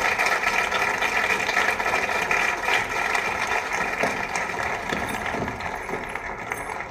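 A crowd clapping and cheering, a dense clatter of many hands that eases off over the last couple of seconds.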